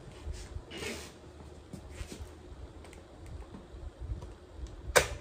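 Realistic portable cassette radio with faint hiss and scattered small ticks, then a single sharp clunk about five seconds in as a key on top of the set is pressed.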